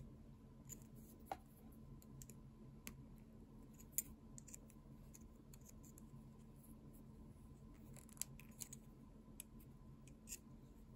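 Jewellery pliers clicking faintly and irregularly as they grip and bend small brass pieces, with one sharper tick about four seconds in.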